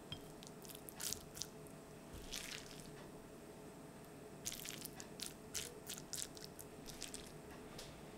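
Red silicone spatula scooping cooked rice out of a cast-iron skillet and onto a ceramic plate: a series of short scrapes, with a cluster of them about halfway through.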